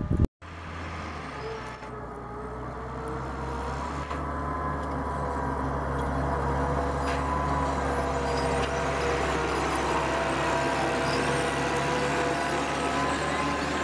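Farm tractor's diesel engine running steadily as it pulls a seed drill across tilled soil, slowly growing louder as it comes nearer.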